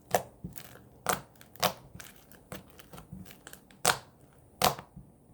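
Homemade borax slime worked with the fingers, giving a run of sharp, irregular clicks and pops, about five loud ones with softer ones between.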